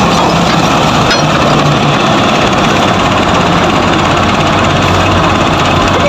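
Diesel engines of a Sperry-New Holland combine harvester and a farm tractor running steadily at close range.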